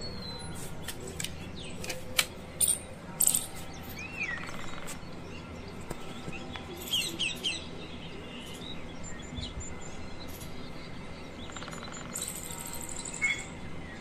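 Birds chirping and calling in scattered short notes, a few sharp and loud, with a quick trill near the end, over a steady faint outdoor background hiss.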